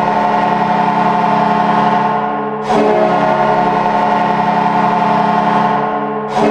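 The Utica Comets' hockey goal horn sounding in long, steady, loud blasts of about four seconds each. One blast is fading, a new one starts about two and a half seconds in, and another starts just before the end.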